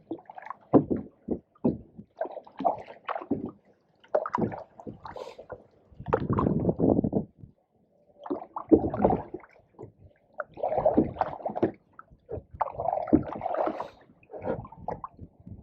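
Canoe paddles stroking through pond water: irregular gurgling and splashing with each stroke, a second or less each, with short pauses between.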